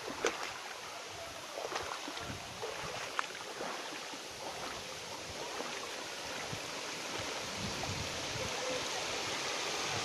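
Creek water rushing over a rock ledge at the lip of a waterfall, a steady noise that grows a little louder toward the end. In the first few seconds there are a few short splashes of wading steps in the shallow water.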